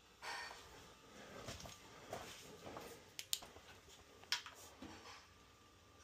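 Rustling and shuffling movement, broken by two sharp clicks about a second apart near the middle.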